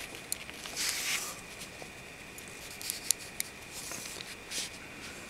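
Faint handling sounds of small plastic parts: a short rustle about a second in and a few light clicks as a propeller is fitted back onto a WLToys V262 quadcopter's gear shaft.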